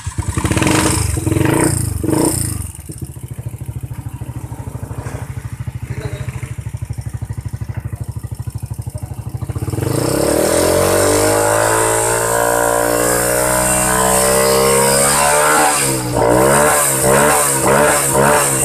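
Honda TMX 125's single-cylinder four-stroke engine running after being brought back to start: blipped at first, then idling with an even low pulse, then revved up and held at a higher speed from about ten seconds in, with repeated throttle blips near the end.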